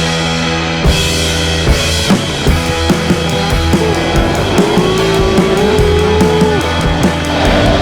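Background rock music with drums and electric guitar and a steady beat.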